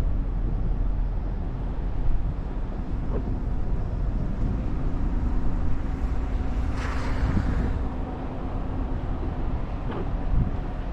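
Wind rumbling on the microphone, with a brief rushing hiss about seven seconds in.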